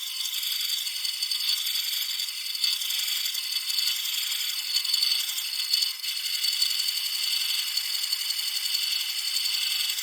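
A 3/16-inch D-Way beading tool rocked into wood spinning on a lathe: a steady, high-pitched scraping hiss of the cut.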